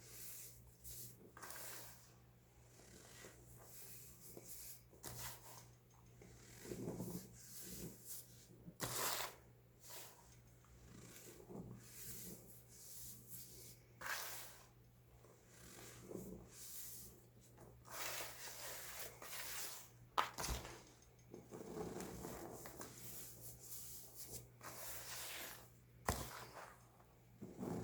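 Baking soda being crunched and crumbled: an irregular run of soft crackles and crumbling, with two sharper snaps about twenty and twenty-six seconds in.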